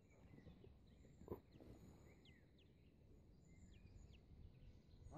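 Near silence with faint, high, short falling chirps from small birds scattered throughout, and one soft bump a little over a second in.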